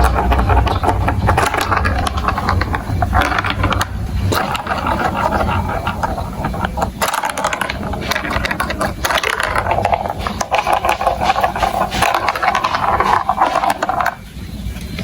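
Marbles rolling and clattering through a plastic building-block marble run: a dense, continuous run of small clicks and rattles, with a low rumble under it for the first few seconds that then fades.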